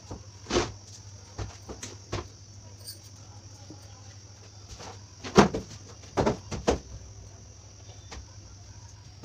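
Scattered light knocks and clicks, with a cluster of louder ones about five to seven seconds in, over a steady low electrical hum.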